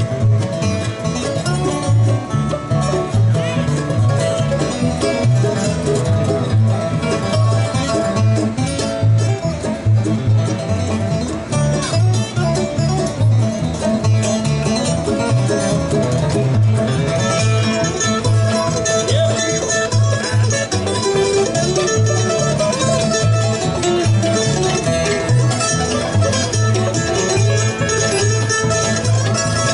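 Bluegrass band playing a banjo tune: five-string banjo, fiddle, mandolin, resonator guitar and acoustic guitar over a steady walking upright bass. Just past halfway the sound grows brighter and fuller.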